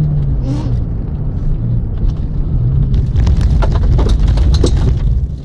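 Subaru Impreza's flat-four engine pulling hard at rally pace, heard from inside the cabin. From about three seconds in, a rapid clatter of gravel and stones is thrown against the car's underside as it runs onto a loose-gravel section.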